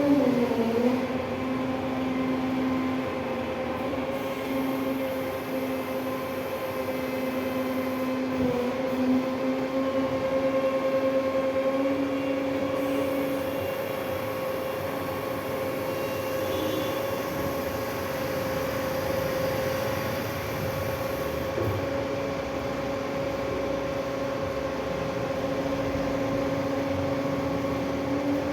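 Combilift forklift running on a trial run after repair: a steady mechanical whine whose pitch drops about a second in, holds level, then rises again at the very end.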